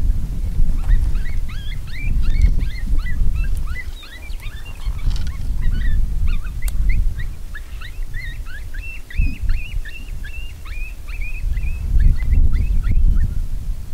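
A chorus of coyote yips and short yelping howls, many quick falling calls overlapping one another from about a second in until near the end. Heavy wind buffets the microphone underneath.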